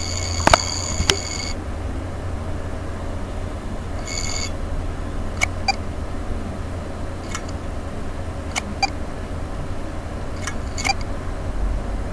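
WD 1TB external hard drive making a strange noise: high electronic beeps, one at the start lasting about a second and a half and a shorter one about four seconds in, with scattered sharp clicks over a steady low hum.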